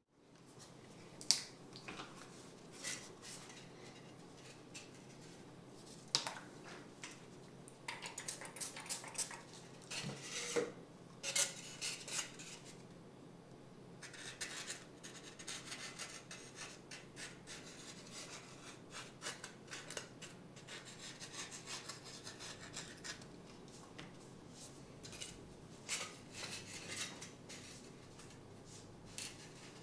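Faint rubbing and scratching of foam model parts and a roll of tape being handled, with scattered light clicks and knocks and a few busier scratchy stretches.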